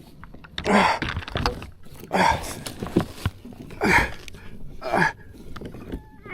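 A man breathing hard in short, heavy gasps about once a second, out of breath after a long fight landing a big catfish.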